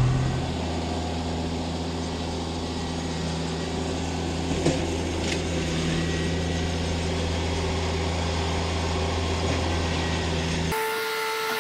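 Compact tractor-loader-backhoe engine running steadily, with a couple of short clanks a little before the middle. Near the end the engine sound cuts off abruptly and steady whistle-like tones take over.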